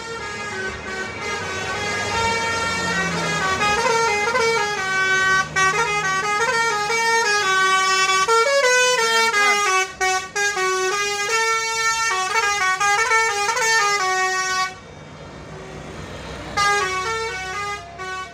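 Tour bus's Basuri musical horn playing a tune of quick stepped notes, breaking off about fifteen seconds in and starting again near the end.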